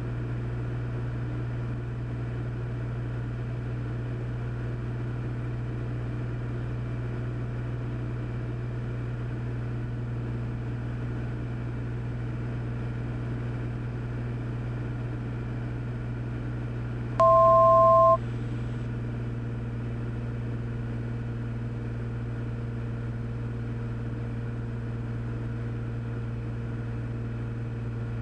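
Steady cockpit drone of a Cessna 400's turbocharged six-cylinder engine and propeller in cruise descent. Partway through, a loud two-note electronic alert tone sounds once for under a second.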